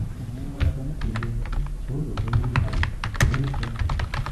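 Typing on a computer keyboard: a quick, uneven run of keystrokes starting about half a second in.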